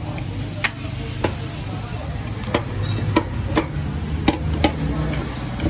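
Metal ladle knocking and clinking against a large cooking pot and serving bowls: a string of sharp, irregular knocks, roughly two a second, over a steady low rumble.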